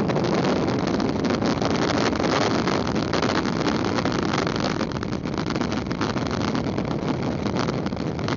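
Steady rush of wind over the microphone mixed with road noise from a Six Degrees folding kick scooter coasting fast downhill on asphalt, easing a little after about five seconds.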